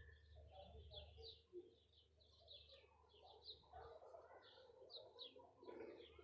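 Faint chirping of small birds: short, high chirps repeating over and over, joined by lower, softer calls in the last couple of seconds.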